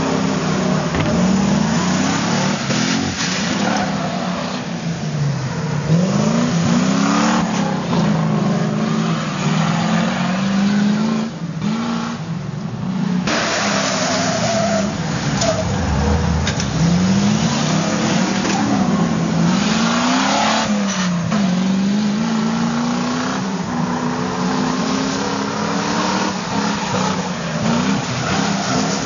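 Drift trucks' engines revving up and down again and again, with the hiss and squeal of spinning tyres sliding on tarmac.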